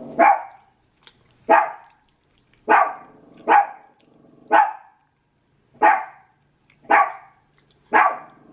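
A dog barking repeatedly, eight sharp barks about a second apart.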